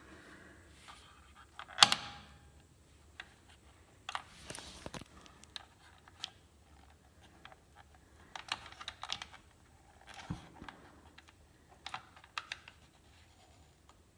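Irregular sharp clicks and short handling noises from a gas water heater's control as the piezo ignite button is pressed again and again while the pilot knob is held in, the loudest click about two seconds in.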